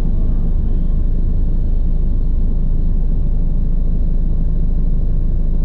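Bell 429 twin-turbine helicopter running in flight: a steady, loud low drone of rotor and engine noise with no breaks.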